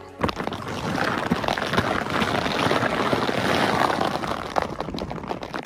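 A sled sliding fast over crusted snow and sleet: a steady, gritty scraping hiss full of small crackles. It starts abruptly just after the beginning and eases off at the end.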